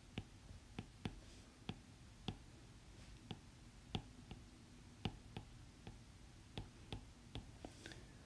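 Faint, irregular sharp clicks about two a second, with a little faint scratching between them: a pen stylus tapping and stroking on a graphics tablet while equations are handwritten.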